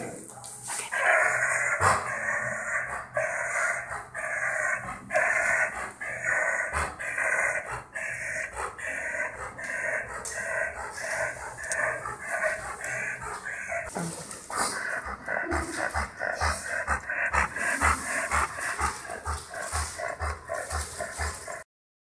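Golden retriever breathing with stridor: a harsh, raspy noise on each breath, about one every two-thirds of a second, quickening to faster panting about halfway through. This is noisy upper-airway breathing, such as laryngeal paralysis causes, which makes cooling by panting harder and raises the risk of heat stroke.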